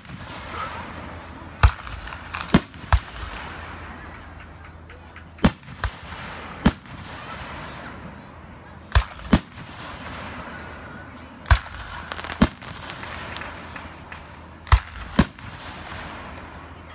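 Fireworks going off: about a dozen sharp bangs of aerial shells, several in quick pairs, over a continuous crackling from the bursts. The bangs stop a little before the end.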